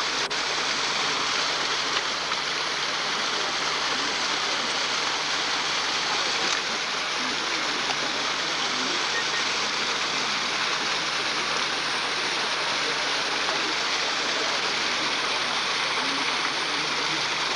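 Small waterfall pouring over rocks: a steady rush of water.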